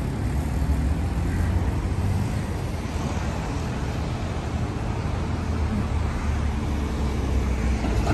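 Road traffic: cars and vans driving by, a steady low rumble.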